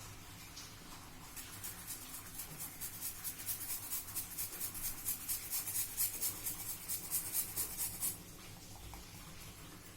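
Ginger being grated: rapid rhythmic scraping strokes, about five a second, building in loudness and stopping abruptly about eight seconds in.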